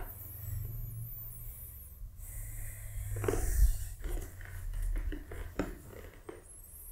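A person shifting on a yoga mat and settling into a cross-legged seat: soft rustling of clothing and mat, with the loudest shuffles about three and a half seconds in and a few more near the end.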